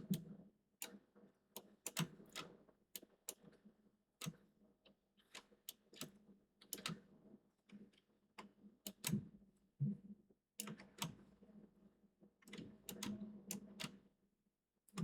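Computer keyboard keys being tapped in an irregular pattern, single keystrokes mixed with quick clusters, faintly.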